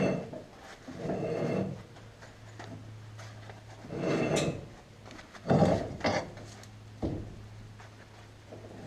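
Front suspension being worked through its travel by hand on a test jig: four or five short scraping, rubbing movements of the control arm, strut and CV joint, found free of binding. A steady low hum runs underneath.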